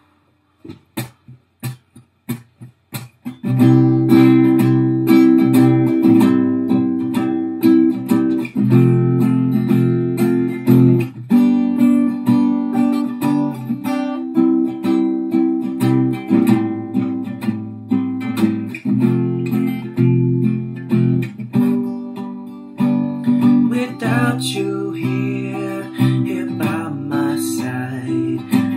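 Acoustic guitar: a few single notes picked one by one, then from about three seconds in, full chords strummed in a steady rhythm as a song's intro.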